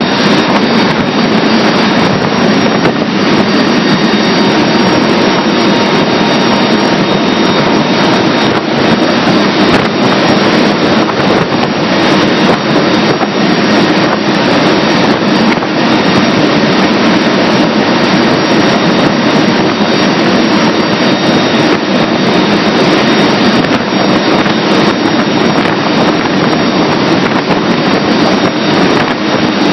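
Steady, loud aircraft engine drone and rushing air heard from inside a light aircraft's cabin in flight, unchanging throughout.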